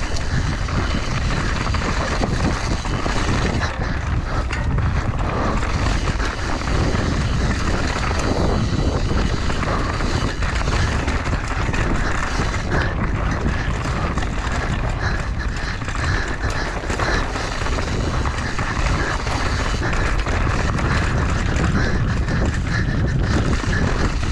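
Mountain bike descending singletrack at speed: tyres running over loose rock and dirt with many small knocks and rattles from the bike, under steady wind rush on the action-camera microphone.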